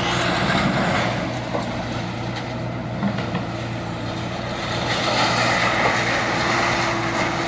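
A motor vehicle running steadily: a constant engine hum with steady low tones under road noise.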